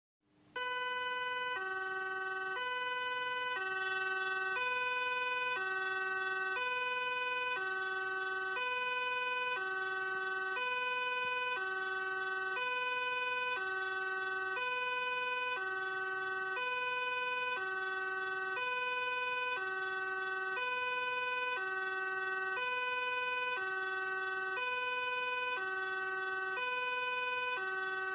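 Two-tone police siren, hi-lo style, switching evenly between a higher and a lower steady note about twice a second. It starts about half a second in, over a faint steady lower tone.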